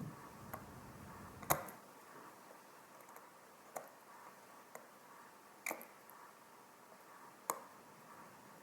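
Small, irregular clicks and taps of a tiny screwdriver and metal parts on an opened wristwatch, about seven in all, the loudest about a second and a half in.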